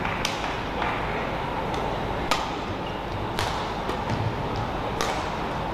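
Badminton rackets striking a shuttlecock in a rally: about five sharp, crisp hits spaced roughly a second apart, over a steady indoor arena hum.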